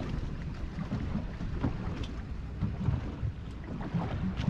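Wind buffeting the microphone aboard a fishing boat at sea, over a steady low rumble of boat noise, with a few faint clicks.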